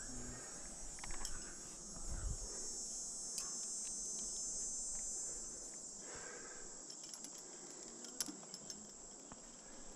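A steady, high-pitched chorus of insects, louder in the middle, with a few light metallic clinks of climbing gear in the second half.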